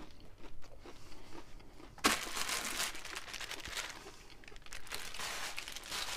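Plastic parcel satchel crinkling and rustling as it is handled. It starts suddenly about two seconds in, eases briefly around four seconds, then goes on crackling.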